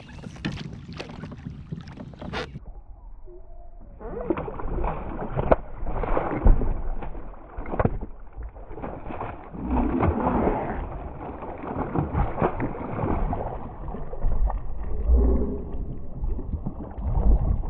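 A large bowfin thrashing in a landing net at the side of a kayak: irregular splashing and sloshing water with several heavy low thumps, louder and busier from about four seconds in.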